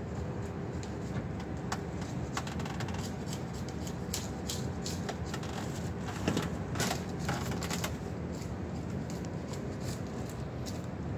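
Steady low hum of the city with irregular light clicks and taps, thickest in the middle, from a handheld phone camera being carried on a walk.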